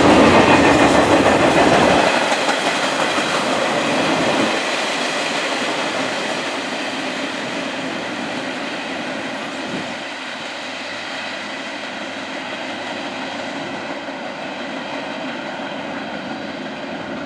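Long freight train's cars rolling past on jointed track with wheel clatter. Loud and rumbling at first, it drops about two seconds in, then fades gradually as the train moves on.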